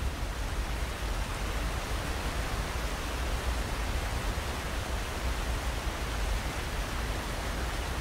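Steady rushing of flowing water, an even hiss without breaks.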